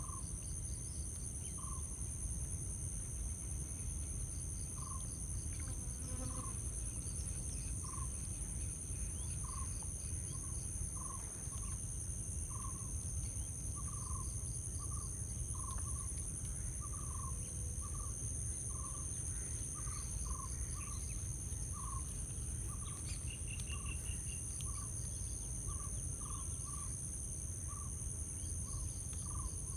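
Insect chorus, crickets trilling steadily and high-pitched throughout, over a low steady rumble. Short chirps from another animal repeat at uneven intervals, more often in the second half.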